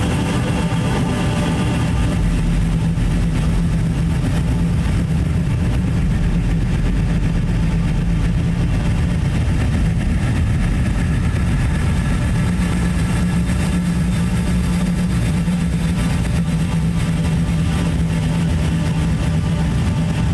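Dark ambient drone music: a steady, dense low rumble with a sustained hum and a grainy noise haze over it, like an idling engine.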